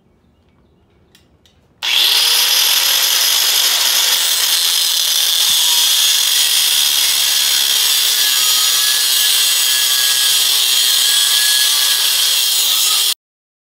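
Angle grinder with a thin cutting disc slicing through the steel steering linkage shaft clamped in a vise, shortening it. A steady, high grinding hiss that starts suddenly about two seconds in and cuts off abruptly near the end.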